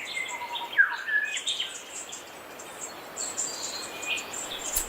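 Several birds chirping and whistling, many short high calls overlapping, with a falling whistle about a second in.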